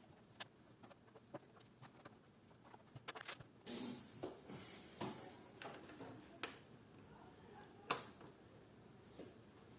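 Faint, scattered clicks and taps of a laptop's plastic case and parts being handled, with a short rustle a little under four seconds in and a sharper click near the end.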